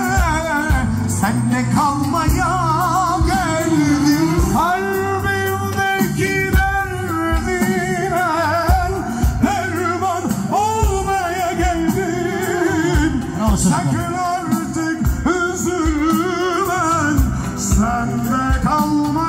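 Live band music played through a PA loudspeaker: an ornamented, wavering melody over a steady beat, with a man singing into a microphone.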